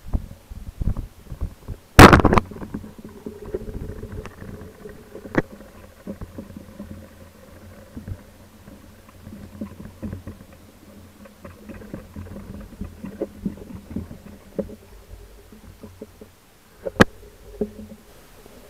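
Speargun firing underwater about two seconds in: one sharp, very loud crack. After it come scattered knocks and rattles of the spear, line and gun over a low steady hum, and another sharp click near the end.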